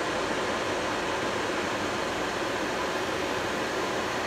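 Steady rushing noise of airflow and air-conditioning on a Boeing 737-800 flight deck on approach, with the landing gear and flaps down.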